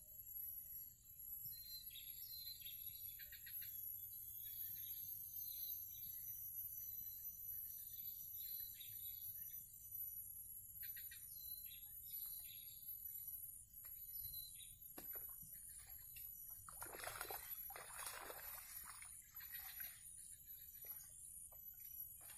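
Open swamp ambience: a steady high-pitched drone with short bird chirps scattered through the first half. About three quarters of the way through, a louder rush of noise lasts about three seconds.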